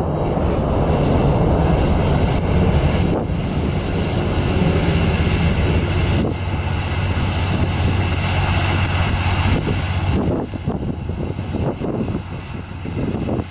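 Rockets from a Tornado multiple rocket launcher leaving in a ripple salvo: a loud, continuous roar of rocket motors with a few sharper cracks in it, turning uneven and breaking up over the last few seconds.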